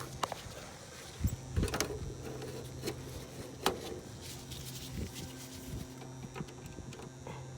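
Heat pump contactor energized and humming steadily with a low electrical buzz, which the technician takes for a bad contactor. Scattered clicks and knocks of meter probes and tools against the unit sit on top of it, the sharpest about four seconds in.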